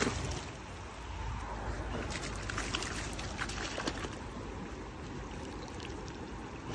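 A dog splashing into shallow river water at the start, then a few small splashes as it wades, over the steady rush of the flowing river.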